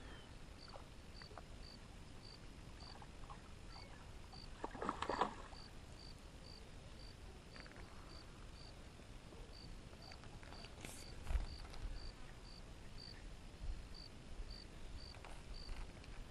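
Faint outdoor quiet with a soft high chirp repeating about twice a second, insect-like. A brief noisy rustle comes about five seconds in and a short soft knock about eleven seconds in.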